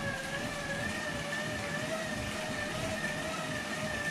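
Road bike tyres spinning on free rollers: a steady whirring whine from the tyres and roller drums, its pitch wavering slightly and creeping up as the pedalling speed changes.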